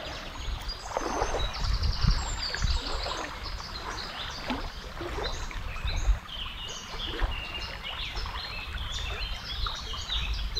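River water sloshing and splashing, as of someone wading, under a busy chorus of songbirds giving many short, quick, high chirps.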